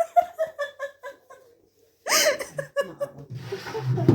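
Laughter: a quick run of short laughing bursts, a pause of about a second, then a sudden louder outburst of laughing with breathy laughs after it.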